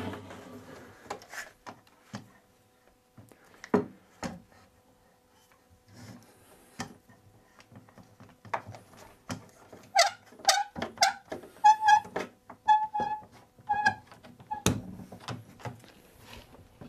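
Irwin Quick-Grip one-handed bar clamp being tightened onto a chair base: scattered knocks as the clamp is handled against the wood, then a run of about a dozen short squeaky clicks, about three a second, as the trigger is pumped. A sharp knock comes near the end.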